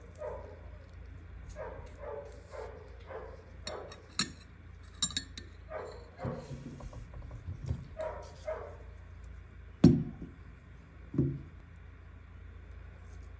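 A small dog yapping in short barks again and again, with a few sharp clinks of glass. Two dull knocks come about two-thirds of the way through, the first being the loudest sound.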